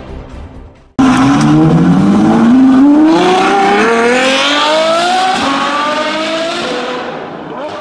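A car engine accelerating hard, starting abruptly about a second in, its pitch climbing steadily for about five seconds before fading away near the end.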